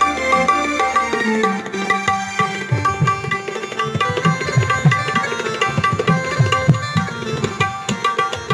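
Harmonium playing a melody over sustained reedy notes, with tabla strokes coming in about two and a half seconds in and keeping a steady rhythm: an instrumental passage of a Kashmiri song.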